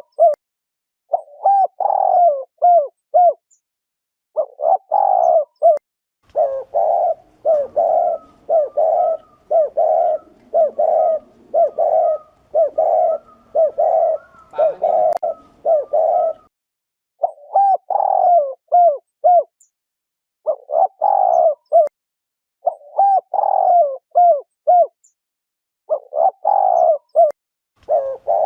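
Spotted dove cooing its 'gù' call in short repeated phrases of a few coos with brief pauses between, and a longer unbroken run of rapid coos in the middle with a second, higher call over it. This is the 'gù' call played to stir up male doves and lure them to traps.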